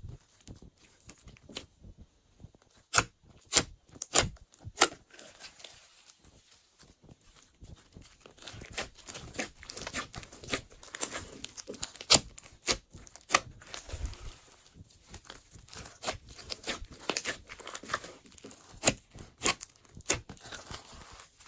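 Glossy slime being stretched, folded and pressed by hand, giving off irregular sticky clicks and pops with soft crackling between them.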